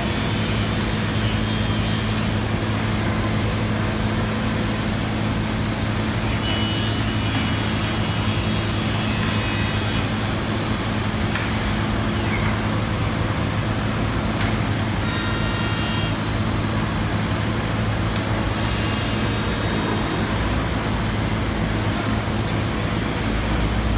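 5-axis wood CNC router running: a steady machine hum, with a high thin whine that comes and goes several times.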